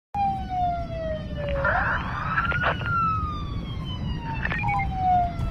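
Police siren sound effect, the 'Cop' background preset of the Vozard voice changer, playing back: a wailing tone that falls slowly over a couple of seconds and then sweeps quickly back up, about twice, over a steady low rumble.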